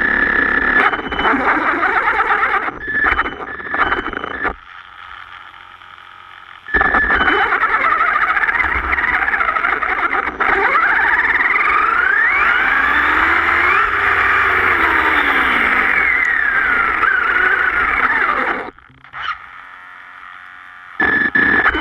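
HPI Savage Flux radio-controlled truck driving, heard from on board: its brushless electric motor and gears whine, rising and falling in pitch with the throttle, over tyre noise on loose stones. The whine drops away twice in brief quieter pauses, about a quarter of the way in and again near the end.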